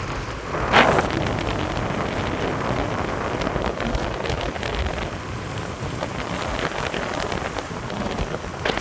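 Steady rushing wind noise buffeting the microphone during a ride, with a loud gust about a second in and another near the end.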